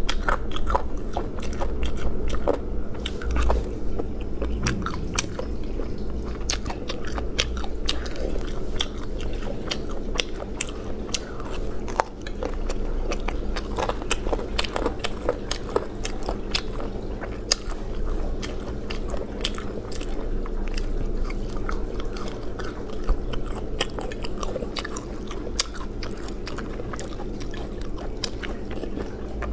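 Close-miked chewing and biting of spicy braised chicken parts and beef skin: a steady stream of small crunchy clicks and wet chewing, with a steady low hum underneath.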